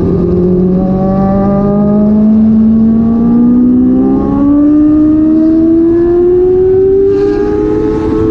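Big motorcycle's engine under acceleration, its note rising steadily, with a step in pitch about four seconds in.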